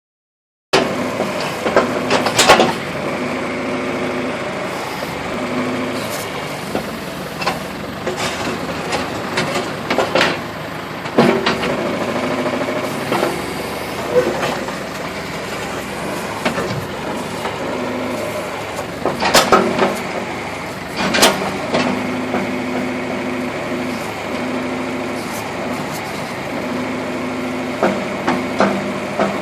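Backhoe engine running steadily, its pitch and load shifting now and then, with several sharp knocks over its sound.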